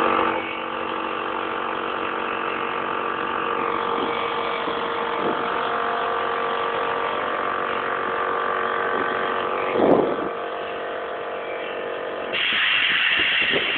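A small motor running steadily with a hum of several fixed tones. There is a brief louder swell about ten seconds in, and a hiss joins near the end.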